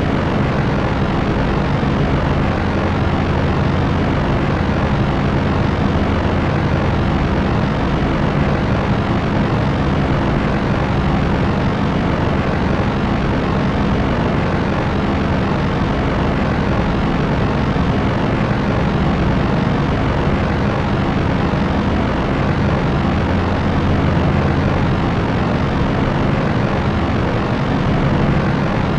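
Propeller aircraft's engines and propellers droning steadily, a continuous rushing noise over a low hum, with no change in pitch or level.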